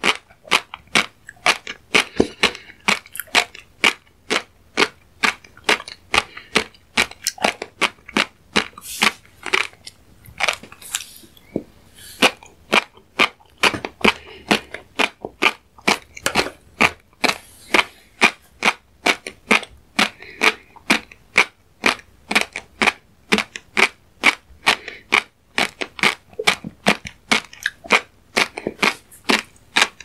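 Close-miked mouth chewing a mouthful of small fish roe, the eggs popping between the teeth in rapid crackling clicks, several a second, with a brief pause about eleven seconds in.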